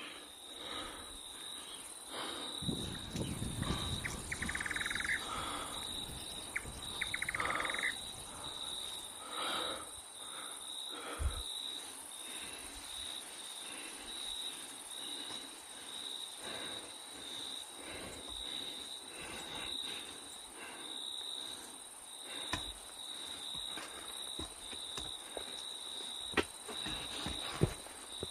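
Night insect chorus in the jungle: a steady, pulsing trill with a fainter high whine above it. Louder rustling and a couple of short, higher calls stand out between about 2 and 8 seconds in, and a few sharp clicks come near the end.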